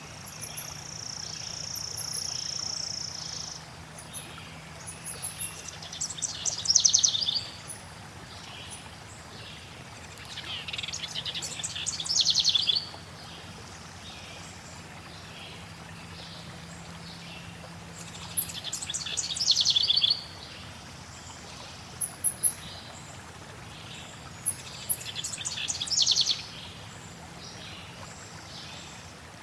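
Songbird singing a rapid trilled phrase four times, each about two seconds long and louder toward its end, with short high chips in between, over the steady rush of flowing water.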